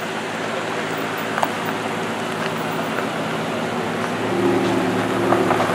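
Ferrari 488 Pista's twin-turbo V8 running at low speed as the car rolls past. Its steady engine note grows louder about four seconds in.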